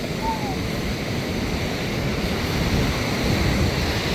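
Ocean surf breaking and washing up the beach, a steady rushing that builds slightly about halfway through, with wind buffeting the microphone.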